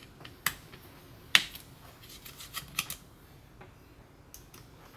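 A scattering of light clicks and taps from hands working the rubber grips loose on a paintball marker's frame, the sharpest about a second and a half in.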